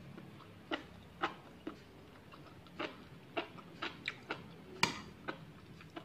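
Metal fork and spoon clinking against a ceramic soup bowl in a dozen or so light, irregular clicks, with one sharper clink about five seconds in.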